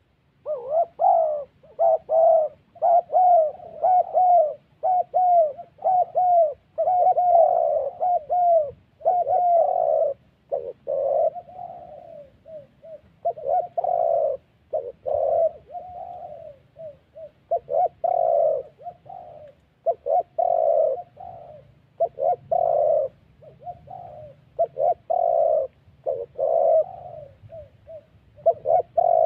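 Spotted doves giving a long run of short, low coos, about two a second at first and then more broken up: the 'thổ' call that doves make while bowing at a rival.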